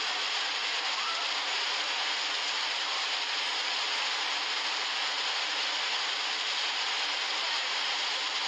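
A rain-fed lahar of muddy floodwater rushing past as a fast torrent, a steady hissing rush with no breaks.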